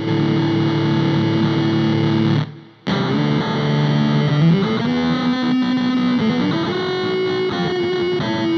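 Electric guitar played through an RPS Effects Bit Reactor bit-crusher pedal, giving a sustained, gritty, distorted digital tone. About two and a half seconds in, the tone cuts out briefly. When it returns, its pitch steps up, then down, then up again.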